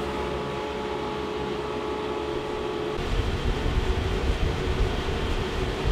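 Homemade butane jet engine fed by an electric leaf blower, running with its exhaust pipe removed: a steady blower whine over a low combustion rumble. About three seconds in, the low rumble grows much louder and the whine fades under it.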